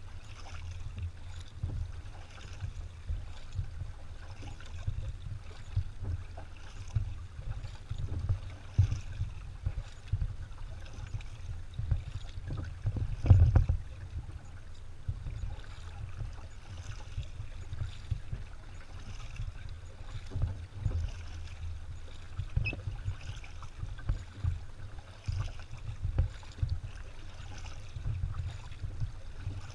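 Kayak paddle strokes, the blades dipping and splashing in the river every second or two, alternating sides. Under them runs a low rumble on the microphone, loudest about halfway through.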